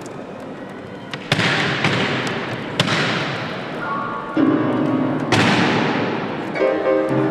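Upright pianos struck hard in loud percussive crashes, about five of them, each ringing on and fading slowly. A few held notes sound in the middle, and a run of repeated piano notes starts near the end.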